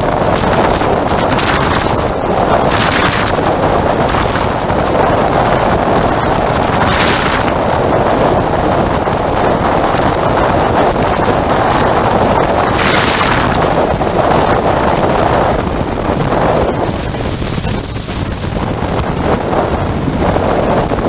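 Wind rushing over the microphone of a camera on a motorcycle at highway speed, surging in gusts several times, with the Harley-Davidson Sport Glide's engine and road noise underneath.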